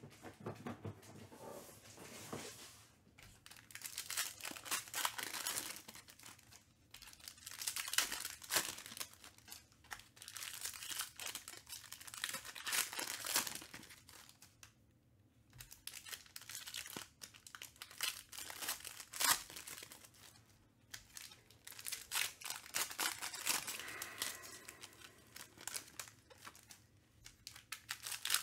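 Trading-card pack wrappers being torn open and crinkled while the cards are handled, in bursts of crackling with a short lull about halfway through.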